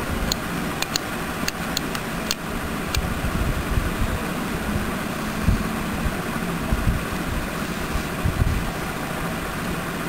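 Small tactile push buttons on a breadboard clicking several times over the first three seconds, over a steady background hum and hiss.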